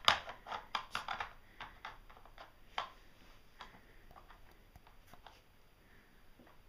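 Hard plastic bone-shaped pieces of a dog's treat puzzle toy clicking and knocking in their plastic tray as a small dog noses at them: a quick run of clicks in the first second or so, then scattered single clicks, one louder about three seconds in.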